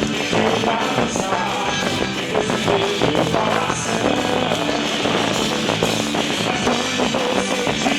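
Festa junina band music from a quadrilha junina's repertoire, with a steady beat.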